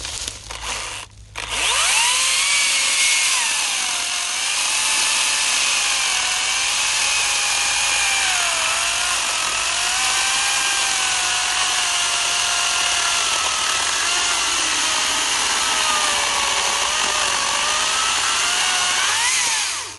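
Makita 18V brushless top-handle chainsaw (XCU06Z) sawing through a 9-inch birch log, close to the limit of its 10-inch bar. After a couple of short blips, the chain runs into the wood about a second and a half in. The motor's whine sags and wavers under the heavy load, then rises sharply as the chain breaks free, and stops just before the end.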